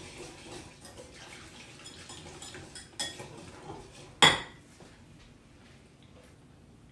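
Wire whisk beating a thin balsamic vinegar sauce in a bowl, its wires clicking and scraping against the sides. About four seconds in comes a single loud clank, then it goes much quieter.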